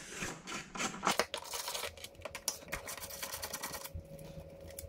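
Ratchet wrench clicking in quick runs of ticks as the 10 mm bolts of a plastic engine cover are worked loose; the clicking stops about four seconds in.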